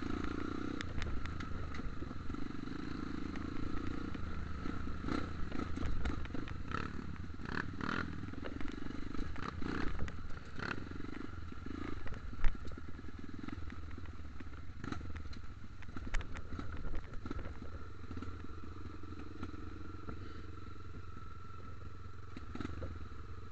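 Off-road dirt bike engine running at low trail speed, with scattered knocks and rattles as it rides over a rough forest track. The knocks thin out over the last few seconds and the engine note evens out.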